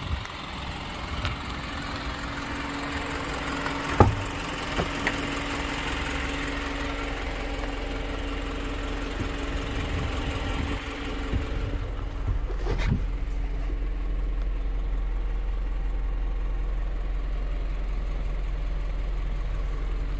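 Isuzu NPR box truck's diesel engine idling steadily. There is a sharp knock about four seconds in and a door thud about thirteen seconds in, after which the idle sounds duller, as heard from inside the closed cab.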